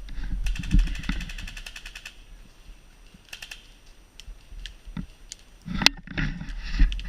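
Airsoft electric rifle firing a full-auto burst, a fast even string of sharp clicks, about fifteen a second, for about a second and a half. Later come a brief second cluster and a few scattered single clicks and knocks.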